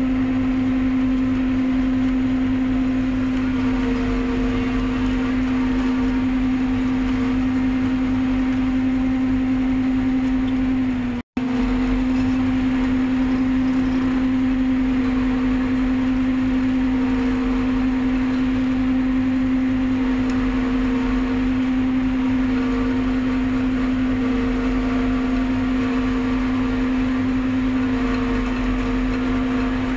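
Forage harvester running steadily while cutting and chopping standing maize for silage, heard from inside the cab: a loud, even machine drone with a strong steady hum. The sound cuts out for an instant about eleven seconds in.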